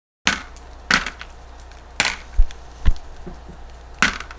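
Handling noise as a potted plant is worked out of its container: about four sharp clicks and cracks, with two dull low thumps between two and three seconds in. The clicks start after a moment of dead silence.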